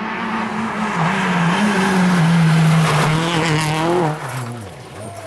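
Peugeot 206 rally car at high revs through a bend, its tyres sliding and scrabbling on loose gravel. The engine note builds, then drops about four seconds in and falls away in pitch as the car passes.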